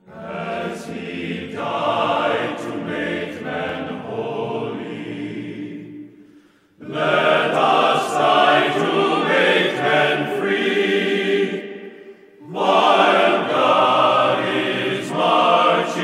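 Choral singing in three long phrases of about five seconds each, separated by brief pauses.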